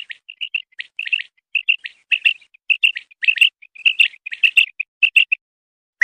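Common quail calling: a fast run of short, high chirps, mostly in quick pairs and threes. They stop shortly before the end.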